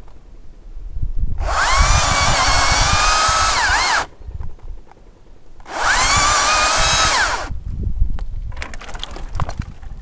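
Makita cordless top-handle chainsaw cutting ginkgo branches in two bursts, about two and a half and two seconds long. Its high electric whine dips in pitch as the chain bites and cuts off suddenly each time. Near the end, branches crackle and knock.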